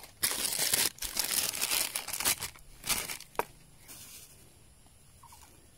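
Foil coffee packet crinkling in a hand for about three seconds, ending in a sharp click. Then fainter rustling follows as ground coffee is poured from the packet into a moka pot's filter basket.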